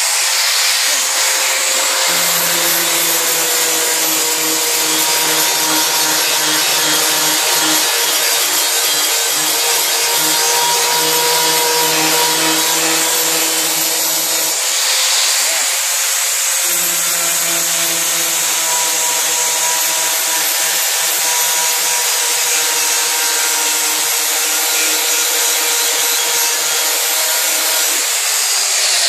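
Angle grinder with a 4.5-inch flap disc running steadily and sanding rust and paint off the steel wing of a Mk2 Volkswagen Golf. The disc spins free for the first couple of seconds, then bears on the metal, eases off for about two seconds around the middle, and bears on again.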